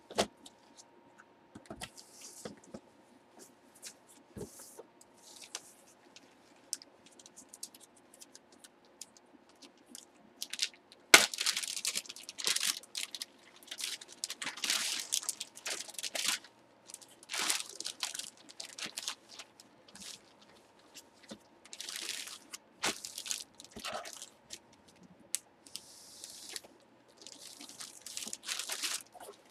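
Clear plastic bag around a jersey crinkling and rustling as it is handled, in irregular bursts that get louder and busier about eleven seconds in. A faint steady hum sits underneath.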